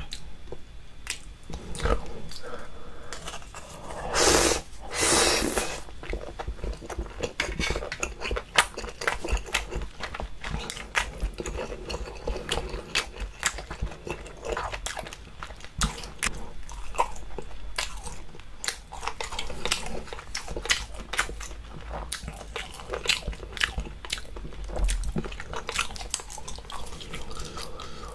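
Close-miked chewing of spicy braised octopus and baby octopus: dense, irregular wet clicks and squelches. Two louder, longer noisy bursts come about four and five seconds in.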